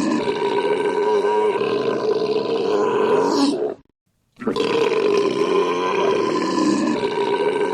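A man's long, drawn-out belch that cuts off to silence for about half a second a little under four seconds in, then starts over.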